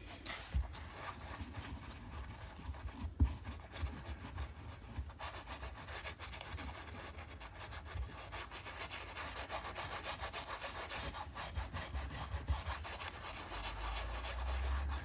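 A paintbrush scrubbing back and forth through paint, a continuous scratchy rubbing of bristles as a lilac-grey is mixed and worked. One sharper knock about three seconds in.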